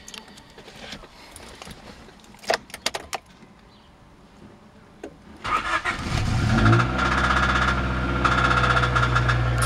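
Honda B16A 1.6-litre DOHC VTEC four-cylinder engine cranked by the starter a little over halfway in, catching within about a second and settling into a steady idle with a rapid, even knock. A few sharp clicks come before the start.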